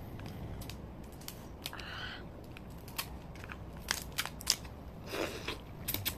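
Cooked crab shell cracking and crunching as it is pulled apart by hand and bitten into: a scatter of sharp snaps and clicks, the loudest about four seconds in, with a short crunch near the end.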